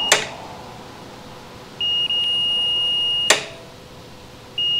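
Fluke digital multimeter's continuity beeper giving one steady high beep of about a second and a half, with a click as the tone cuts off, then starting another beep near the end. The beep marks continuity through the motorcycle's brake light switch as it closes and opens during testing.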